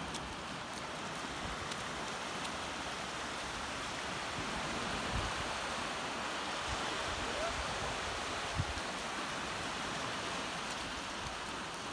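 Small Baltic Sea waves washing onto a flat sandy shore: a steady rush of surf, with a couple of dull low thumps about halfway through.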